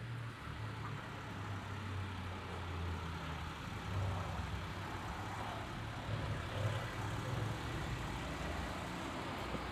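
A motor vehicle's engine running, a steady low rumble under general street traffic noise.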